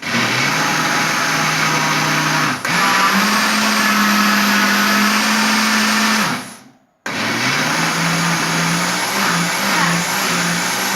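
Electric blender motor running on carrot cake batter with the sugar just added. It briefly dips about two and a half seconds in and comes back at a higher pitch, then winds down just after six seconds and starts up again about a second later.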